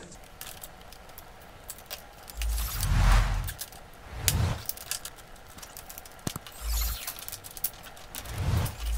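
Insulated electrical wires being pulled and rustled against each other and the plastic junction box, with scattered small clicks and a few dull bumps.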